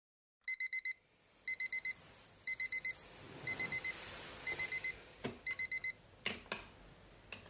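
Philips digital alarm clock beeping in quick groups of four, about one group a second. Near the end a few sharp clicks come as a hand presses the button on top, and the beeping stops.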